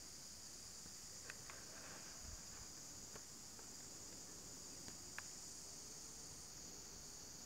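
Steady high-pitched insect chorus, a continuous shrill drone, with a few faint clicks about a second in and again about five seconds in.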